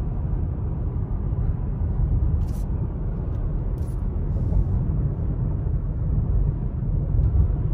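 Steady low rumble of road and engine noise inside a moving car's cabin, tyres running on pavement. A couple of faint ticks come through near the middle.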